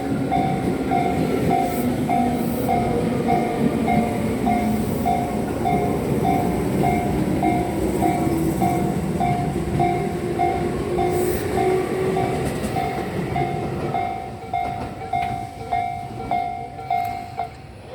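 Japanese level-crossing warning bell ringing about twice a second over the running noise of a Tobu Urban Park Line electric train at the crossing, the train's motor whine rising in pitch as it goes. Near the end the bell stops and the train noise fades.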